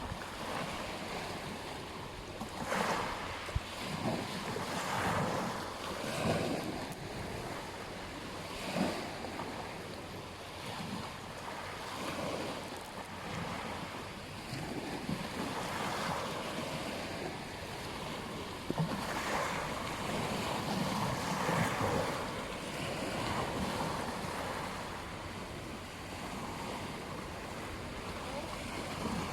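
Ocean waves breaking and washing on a beach, surging every few seconds over a steady rush of surf, with some wind on the microphone.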